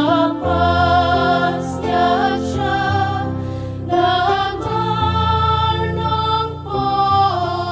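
A mixed choir of women and men singing in harmony, holding long notes with the chord changing every second or two.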